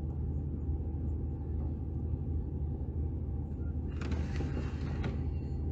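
Car engine idling, a steady low hum heard from inside the cabin, with a brief rustling hiss about four seconds in that lasts about a second.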